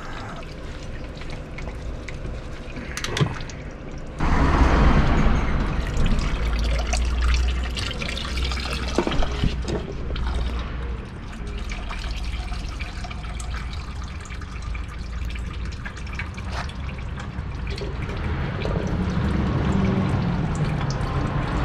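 Engine oil running from the oil filter mount into a handheld drain pan as the oil filter is removed. It starts suddenly about four seconds in and keeps trickling and splashing, with a few clicks of the pan and tools.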